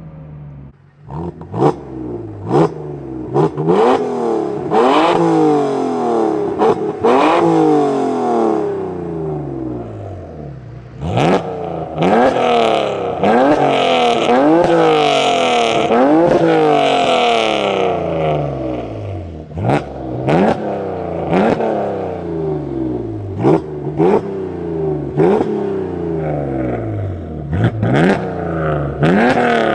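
BMW E46 330i straight-six engine free-revved again and again through an open valved exhaust with free-flow headers and a small resonator. Each rev climbs quickly and falls away slowly, with a longer rev held high in the middle.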